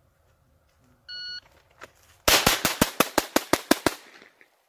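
A shot-timer beep, then about a second later a rapid string of about ten .22 LR pistol shots from a Glock 44, evenly spaced over about a second and a half.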